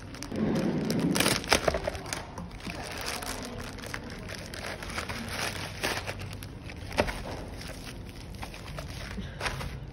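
Plastic courier mailer bag crinkling and rustling as it is handled and torn open, with irregular sharp crackles; the rustling is loudest in the first second or so.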